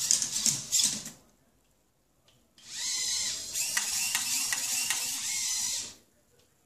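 Servo motors of a small kit-built humanoid robot whirring as it moves: a short burst of whine mixed with clicks, a pause of about a second and a half, then about three seconds of continuous whirring as it swings its arms.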